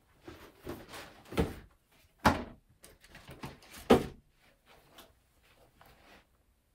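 Sneakers being handled and set down on a hard surface: rustling and scraping with three louder knocks in the first four seconds, then softer rustles.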